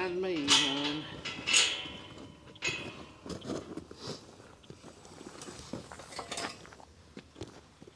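A wavering vocal sound fades out in the first second. After it come scattered light clicks and knocks, metal on metal, as steel pipe pen rails are handled, along with footsteps.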